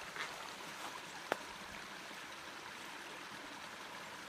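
Shallow creek water running steadily, with small light splashes near the start as a hand releases a brook trout into the water. A single sharp click a little over a second in.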